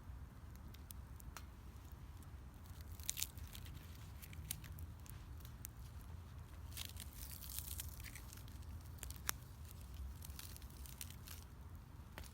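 Wood fire crackling, with scattered sharp pops and snaps at irregular intervals over a low, steady rumble.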